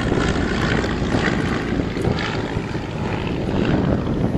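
Royal Aircraft Factory S.E.5a biplane's engine and propeller running steadily as it flies a display overhead.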